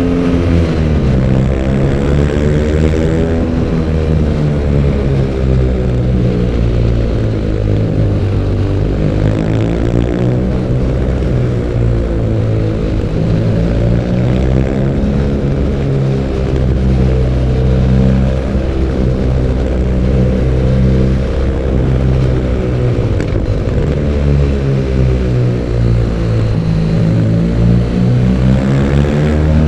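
BMW R nineT Urban G/S 1170 cc air/oil-cooled boxer twin running on its stock exhaust while riding. The revs rise and fall several times as the rider opens and closes the throttle through the gears.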